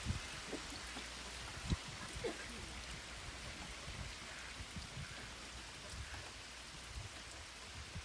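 Rain falling steadily, an even hiss of drops, with a couple of short low thumps in the first two seconds.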